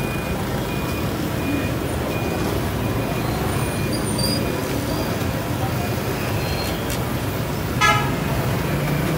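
Street traffic ambience: a steady low rumble of passing vehicles, with a short horn toot near the end.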